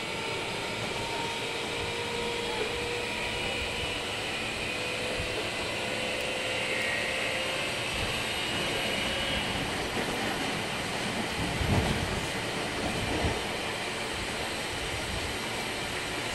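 Running noise inside a Meitetsu 5000 series electric train car: a steady rumble of wheels on rail with faint high tones drifting in pitch, and two short louder knocks about twelve and thirteen seconds in.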